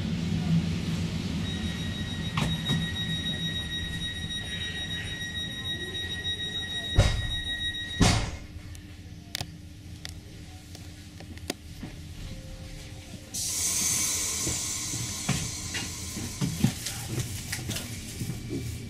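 Electric passenger train standing at a station: a steady high electronic warning tone sounds for several seconds, then two heavy thumps as the sliding doors shut. A few seconds later there is a sudden hiss of compressed air.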